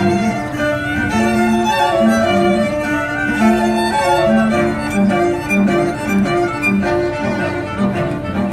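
Live string quartet of violins and cello playing. A steady pulse of short repeated notes, about two a second, sounds in the low strings under a longer melody line above.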